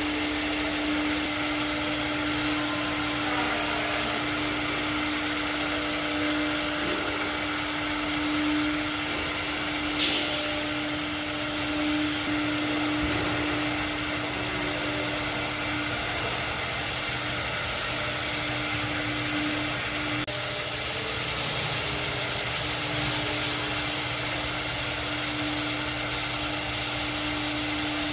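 Large CNC router running: a steady hum under a constant rushing machine noise, with one sharp click about ten seconds in.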